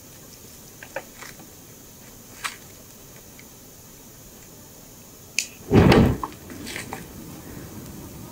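Light clicks, then a pile of sticks doused with fuel catching fire in one sudden loud whoosh about six seconds in. The flames then keep burning with a steady rush.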